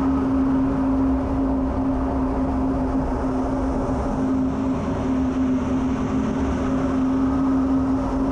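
F-16 cockpit noise in flight: a steady jet engine and airflow rumble with a constant hum, during a steep banked turn.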